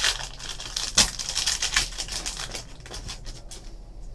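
Foil trading-card pack wrapper crinkling as it is torn open, then cards being handled and slid against one another: a quick run of small clicks and rustles, with one sharp crackle about a second in, thinning out near the end.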